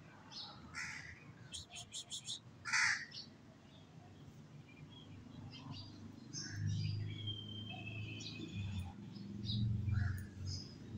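Crows cawing several times, including a quick run of about five short caws; later, small birds chirp over a low rumble.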